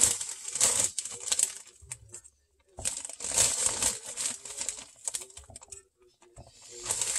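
Clear plastic zipper bag crinkling and rustling as a hand rummages inside it, pulling out pieces of cinnamon-sugar-coated biscuit dough. The rustling comes in bursts, with brief pauses about two seconds in and about six seconds in.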